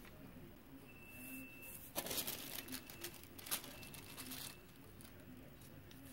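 Quiet paper rustling and crinkling as a sheet of tracing paper and the graphite transfer paper beneath it are peeled off a drawing and lifted away, in a few quick bursts starting about a second in, the sharpest about two seconds in, dying away after about four and a half seconds.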